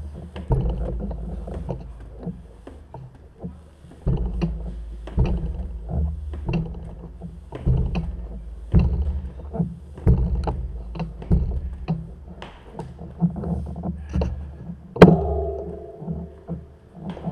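Walking down a stairway: irregular low thuds and clicks of footsteps and jostling gear. Near the end comes one sharp metallic clank that rings briefly.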